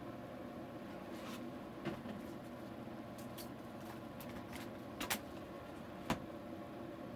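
Artograph Argus AG100 opaque art projector running with a steady hum, with a few clicks and knocks as the picture under it is changed: one about two seconds in, a quick double knock about five seconds in and a sharp click a second later.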